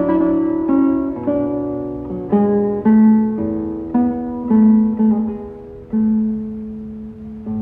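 Solo classical guitar playing a slow, melodic piece, recorded off a radio broadcast: plucked notes about one a second, each ringing and fading, over a held bass note.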